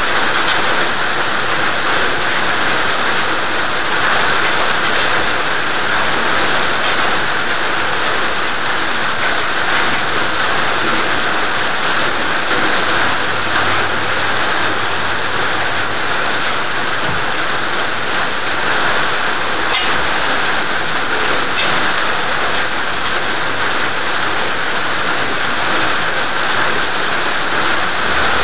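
Rain falling steadily, a loud, even hiss with a couple of faint clicks about two-thirds of the way through.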